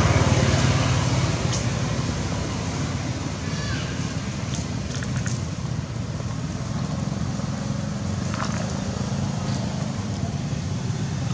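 Steady low hum of a motor vehicle engine over outdoor background noise, with a few faint clicks.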